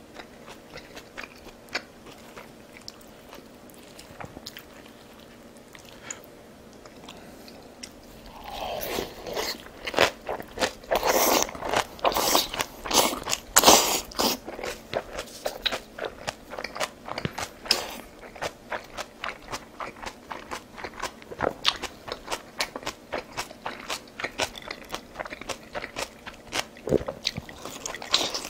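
A person chewing and crunching food, with faint scattered clicks at first and then dense, loud crunching from about eight seconds in.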